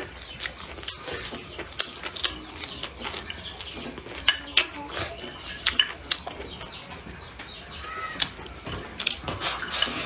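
Eating from a bowl with chopsticks: many sharp clicks and scrapes of the chopsticks against the bowl as rice is shoveled into the mouth, with chewing.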